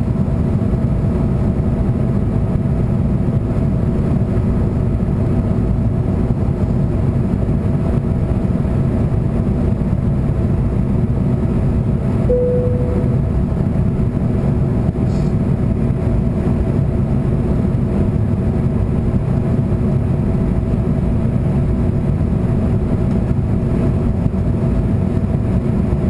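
Steady cabin noise of an airliner in flight, engine and airflow noise that is deepest and loudest in the low end, with a short single tone about halfway through.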